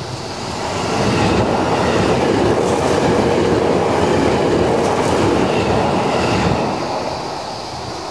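JR East E257-500 series electric express train passing through a station at speed: a rush of wheel and rail noise with clickety-clack that builds over the first second, holds loud for about five seconds, then fades away near the end.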